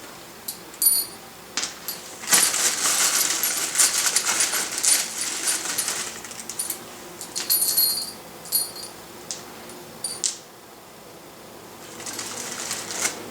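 Steel lug nuts and lock washers clinking and jingling against each other as they are handled and counted out, in many small sharp metallic clicks with a brief ring, and a stretch of rustling in the middle.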